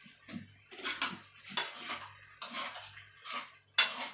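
A cooking utensil scraping and clattering in a pan as fried spaghetti is stirred, in several irregular strokes, with a sharper, louder clank near the end.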